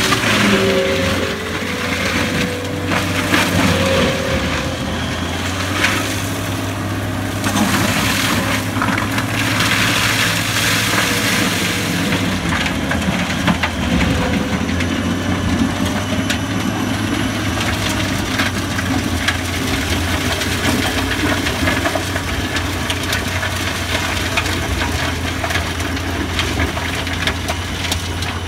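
Tracked forestry mulcher working through brush and hedge: a steady low engine drone under load, with the rotor head crushing and splintering wood. The shredding comes in heavy surges through the first dozen seconds, then settles into a steadier grind.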